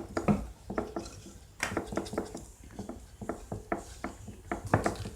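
A spoon clicking and scraping against a mixing bowl in quick, irregular strokes, stirring borax water into glue to make slime.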